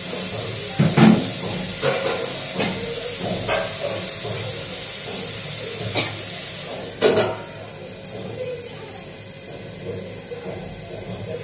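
Kitchen sounds: a steady hiss with a few sharp knocks and clinks of steel pots and utensils, loudest about a second in and again about seven seconds in.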